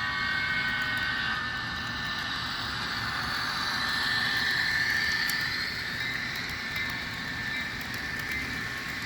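Rapido HO scale F59PH model's DCC sound decoder playing a diesel locomotive engine running, heard through the model's small speaker. Its tones rise in pitch midway and settle back again.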